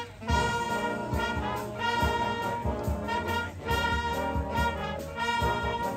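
A concert band of brass and woodwinds (trumpets, trombones, saxophones, flutes) playing a tune in held notes, phrase after phrase.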